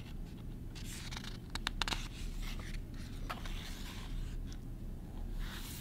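A page of a picture book being turned by hand: paper rustling and sliding, with a few light clicks from the page and fingers partway through and another soft rustle near the end.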